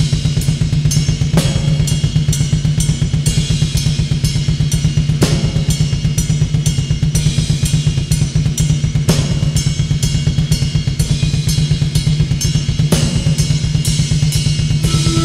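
Black metal drum kit playing alone: a very fast, continuous bass-drum pulse under cymbals and snare, with a heavier accented hit about every four seconds.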